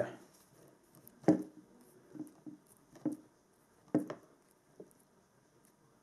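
Hands twisting and folding over the stripped ends of thin balance-lead wires: a few short, soft rustles and taps, the loudest about a second in, then several smaller ones over the next few seconds.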